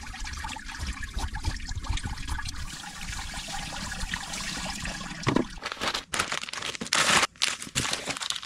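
Tap water running and splashing into a sink while a fish is cleaned under it; the splashing becomes louder and more broken from about five seconds in.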